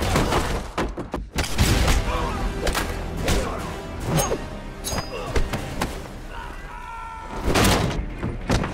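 Film fight sound effects: a string of heavy punch and body-impact hits, one every half second or so, over a continuous music score, with a louder burst of hits near the end.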